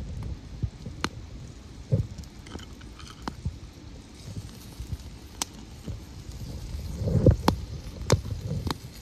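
Wood campfire crackling, with irregular sharp pops and snaps, under a low rumble that swells about seven seconds in.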